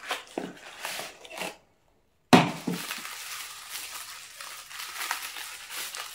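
Cardboard box flap scraping open, then, after a moment of dead silence, a sudden loud crackle about two seconds in. Honeycomb kraft-paper packing wrap keeps crinkling and rustling as it is handled.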